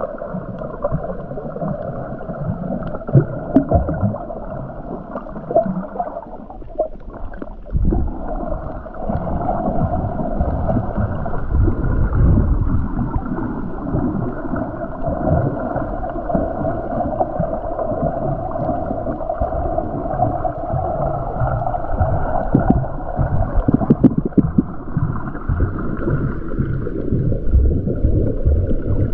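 Muffled underwater sound from a camera on a snorkeler: water sloshing and bubbling, with crackly low thumps and a steady drone. It dips briefly about seven seconds in, then returns.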